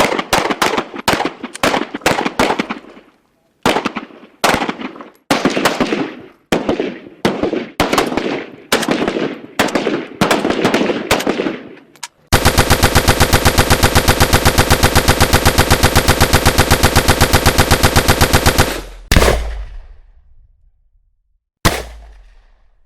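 Gunfire: single shots and short bursts for about twelve seconds, then one long, fast, evenly spaced burst of automatic fire lasting about six seconds, then two single loud shots a few seconds apart, each with a long ringing tail.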